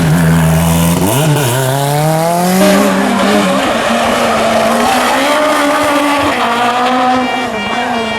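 Rally car engine under hard acceleration. The pitch dips about a second in, climbs steadily, then drops at a gear change and keeps pulling.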